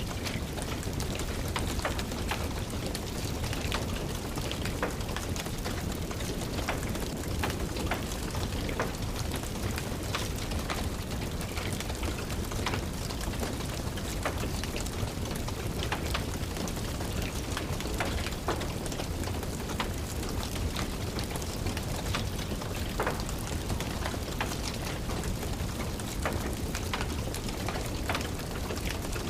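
Steady rain with scattered sharp crackles and pops from a burning wood fire.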